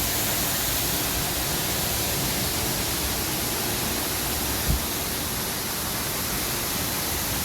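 Waterfall roaring steadily, heard from behind the falling curtain of water. A brief low thump about halfway through.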